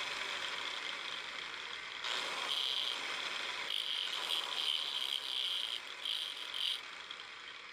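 Electric grinding wheel spinning while the tip of a small steel screw is ground down on it to shorten it. There is a steady whir, with several short, louder stretches of grinding hiss as the screw is pressed on, from about two seconds in until about seven seconds in.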